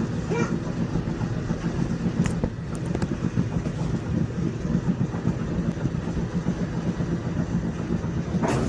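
Steady low mechanical rumble of a running vehicle, with a faint click a little over two seconds in and a brief louder burst of noise near the end.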